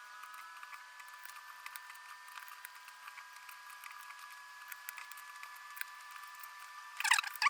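Faint scattered clicks and scrapes of a small screwdriver driving screws into a netbook's plastic case, over a steady high whine, with a short louder burst near the end.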